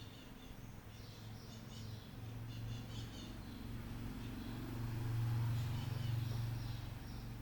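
Small birds chirping in short clusters of high notes over a low steady hum that swells about five seconds in and eases off near the end.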